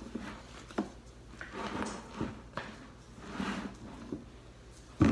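A bulldog rummaging with its snout inside a clear plastic storage bin after a rope toy: soft scrapes and rustles of the toys shifting against the plastic, a few light knocks, and a sharper knock near the end.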